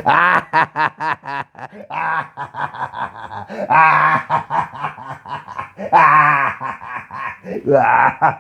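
A person laughing loudly in about four bouts of rapid, pulsing ha-ha-ha, each bout opening with a rising cry.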